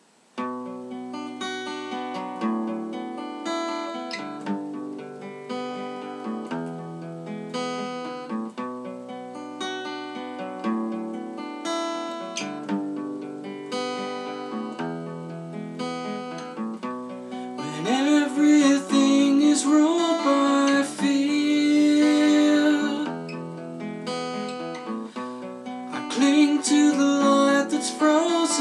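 Acoustic guitar played note by note as a song's opening. It grows louder and brighter about two-thirds through, when a man's voice comes in singing along, and again near the end.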